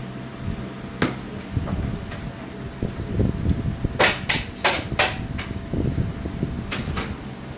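Sharp taps and clicks of a soldering iron tip working on an LCD monitor's T-con circuit board: one about a second in, then a quick cluster of about five between four and five and a half seconds in, over a low background hum.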